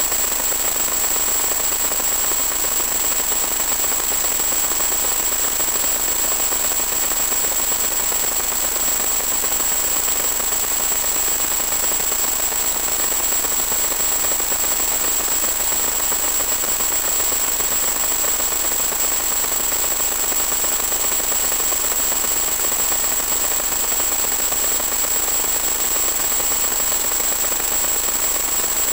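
Steady hiss with a constant high-pitched whine, unchanging throughout: static on the audio channel of a 1.2 GHz FPV video link.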